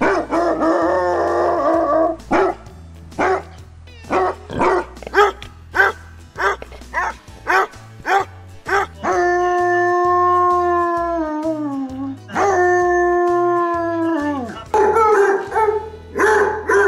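Basset hounds baying and barking: a held bay, then a run of quick barks about two a second, then two long howls that each fall in pitch at the end. Near the end two basset hounds bark and bay back and forth.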